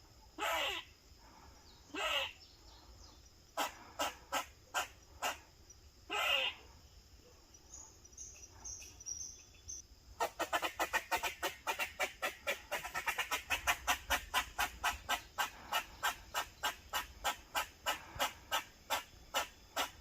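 Grey squirrel alarm barking: a few sharp barks and several longer drawn-out calls, then from about halfway a fast run of barks, about three or four a second, slowing slightly near the end. The calls are the squirrel's protective alarm behaviour.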